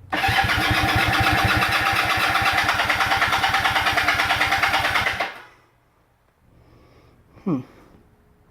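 1976 Kawasaki KZ400 parallel-twin engine being started after sitting about a year on old gas, going with rapid, even pulses for about five seconds and then stopping.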